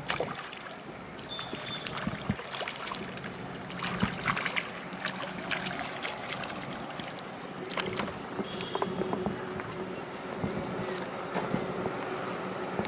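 A hooked fish splashing and thrashing at the water's edge as it is pulled in to the bank, a quick, uneven run of splashes and rustles, densest in the first half and again about eight seconds in.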